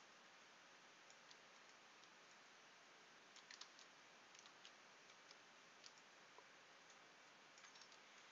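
Near silence with faint, scattered clicks of a computer keyboard and mouse: a small cluster about three and a half seconds in, single clicks after it, and a few more near the end.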